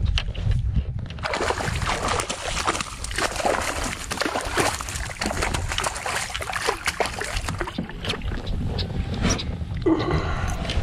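Water splashing and sloshing for several seconds beside a kayak as a hooked largemouth bass thrashes at the surface while it is brought in. A steady low wind rumble sits on the microphone, and a voice starts near the end.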